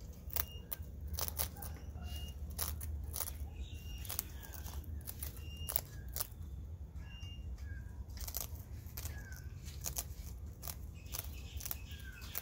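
Sulphur-crested cockatoo biting and crunching a biscuit in its beak: a string of sharp, irregular cracks. Short chirps of other birds sound in the background.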